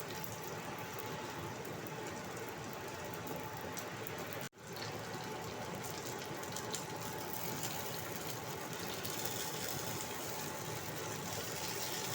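Potato-and-carrot fritters sizzling steadily as they deep-fry in hot oil in a wok. The sound cuts out for a moment about four and a half seconds in, then carries on.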